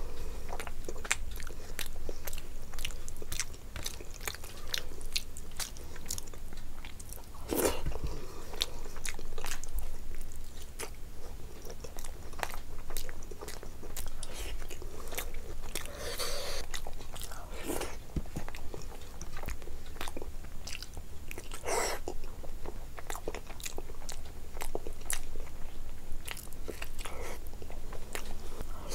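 A person chewing mouthfuls of duck egg curry and rice: a steady run of wet mouth clicks and smacks, with a few louder ones.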